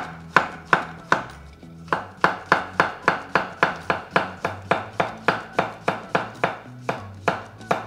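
Chef's knife slicing a yellow squash into thin rounds on a wooden cutting board: a quick, even run of sharp knocks on the board, about four a second, with a brief pause a little over a second in.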